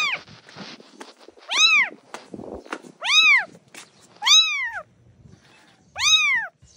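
Newborn kitten mewing five times, roughly every one and a half seconds: high, thin cries that each rise and fall in pitch.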